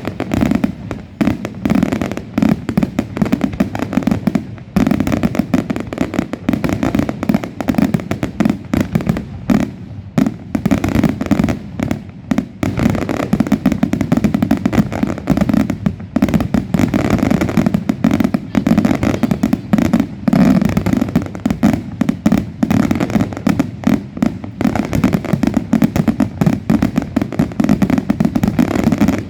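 Fireworks display: a dense, continuous barrage of rapid bangs and crackling, with no let-up.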